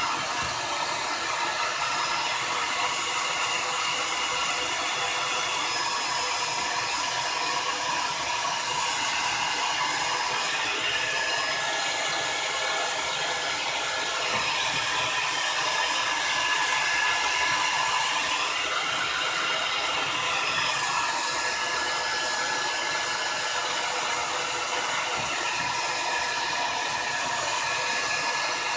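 Old hair dryer blowing steadily, its pitch wavering slightly partway through as it is moved, heating crayon wax on a mirror.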